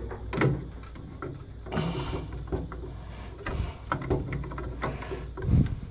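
Scattered clicks, taps and knocks of a wooden-stocked rifle and small items being handled inside a steel security cabinet, with a louder thump about five and a half seconds in.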